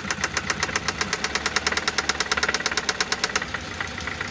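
Toyota 1ZZ-FE four-cylinder engine running with a fast, regular knock, about eight or nine strikes a second, that stops about three and a half seconds in while the engine keeps running. The knock is being traced by cutting out ignition coils one at a time.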